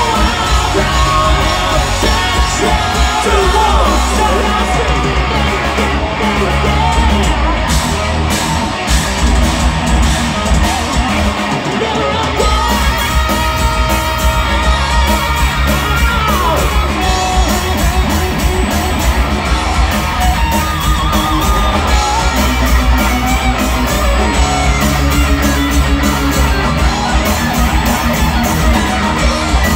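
Live heavy rock band playing loud, with electric guitars, bass guitar and drums. A lead electric guitar plays a solo with sliding, bending notes over the band. The bass and drums drop out briefly a little before the middle.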